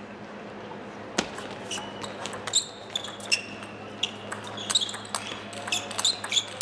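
Table tennis rally: a series of short, sharp pocks as the plastic ball is struck by rubber-faced bats and bounces on the table. It starts with the serve about a second in and comes at an uneven, quickening pace.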